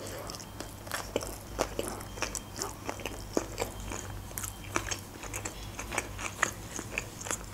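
Close-miked chewing of a mouthful of sushi roll: a steady run of small wet clicks and smacks from the mouth.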